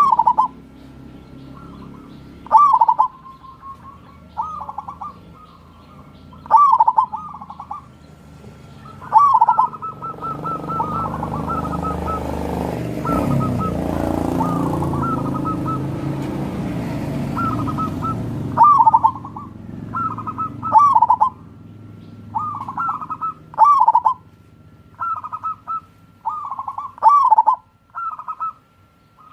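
Zebra dove (perkutut) cooing: short phrases of rapid staccato coos, repeated every couple of seconds. Partway through, a broad low rumble swells and then fades.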